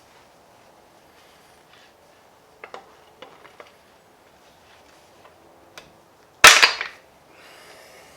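Light clicks and taps of metal tools and engine parts being handled, then one loud, sharp bang about six seconds in that dies away within half a second.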